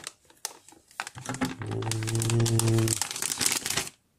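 Metallic anti-static bag crinkling and crackling as it is torn open and a graphics card is pulled out of it. Midway, a man's voice holds a long hum for about a second and a half.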